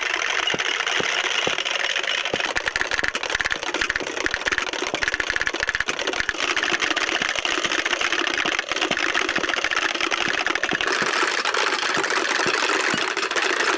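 Wooden Easter clappers (Klapper) rattling in a fast, unbroken clatter. This is the Holy Week clappering that stands in for the silent church bells between Maundy Thursday and Holy Saturday.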